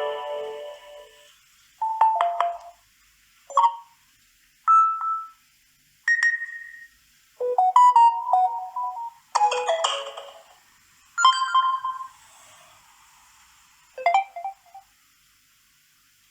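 A Samsung Galaxy A20's speaker playing its preset notification tones one after another: about nine short electronic chimes, each lasting around a second, separated by brief pauses.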